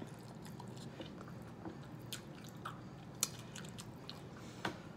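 Close-up eating sounds: a person chewing, with small wet mouth smacks and clicks scattered throughout and a few sharper clicks about two, three and nearly five seconds in.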